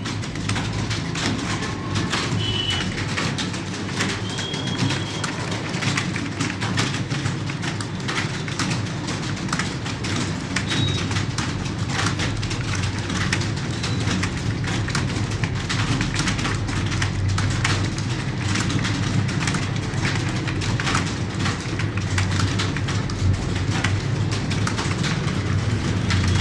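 Rapid typing on a computer keyboard, a continuous irregular clatter of key clicks, over a steady low hum.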